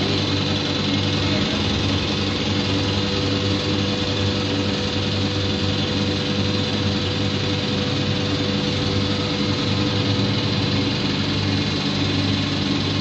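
Blown film extrusion plant running: a steady machine hum with a constant tone above it, unchanging throughout.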